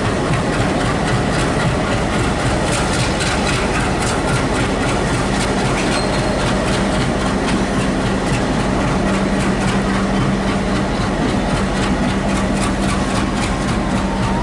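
WDM-3A diesel-electric locomotive's 16-cylinder ALCO engine running under load as it pulls a passenger train away, a steady low drone that grows stronger about halfway through as the locomotive passes. Wheels click over the rail joints as the coaches follow.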